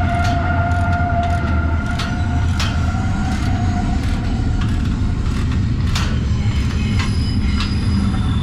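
Train passing close by: a steady heavy rumble with high, drawn-out wheel squeal that fades about halfway through and returns at a higher pitch near the end. Scattered sharp metallic clicks sound over it.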